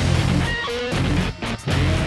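Music with guitar.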